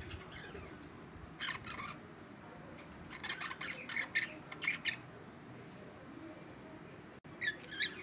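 Budgerigars chirping and chattering in short bouts: one about a second and a half in, a longer run in the middle, and another near the end.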